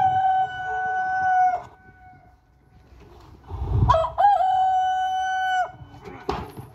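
A rooster crowing twice, each crow a long, drawn-out held call. There is a low rumble just before the second crow.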